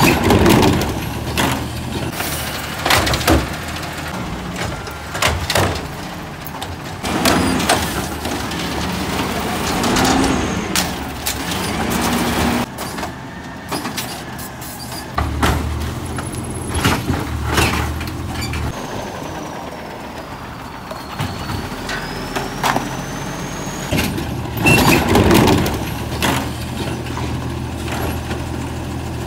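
Natural-gas-powered automated side-loader garbage trucks running, their hydraulic arms lifting and dumping trash carts, with repeated loud bangs and clanks as the carts hit the hopper and are set back down over a steady engine hum.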